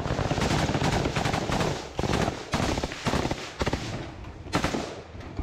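Assault rifle fired at close range on full auto: a long rapid burst for about the first two seconds, then a string of short bursts.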